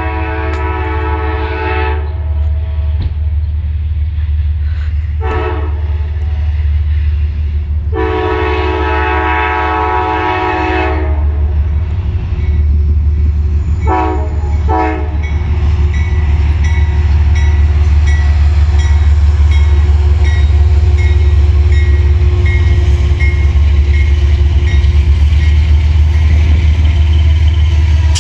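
Amtrak Genesis diesel locomotive sounding its horn: a long blast, a short one, another long one, then two short toots. After that a bell dings in a steady rhythm while the locomotive's engine and wheels rumble, growing louder from about halfway through as it passes close by.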